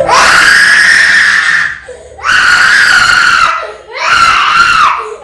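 Baby crying hard: three long, loud, high-pitched wails, with a short break between each.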